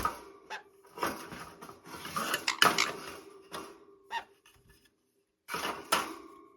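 Rustling and light clattering around a pet sun conure's cage, in several short bursts, as the bird is settled into its bed for the night.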